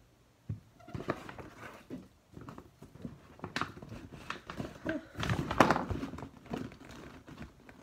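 A paper gift bag rustling and crinkling as a hand rummages inside it, with light knocks of the items being handled. It starts about half a second in and is busiest and loudest about five to six seconds in.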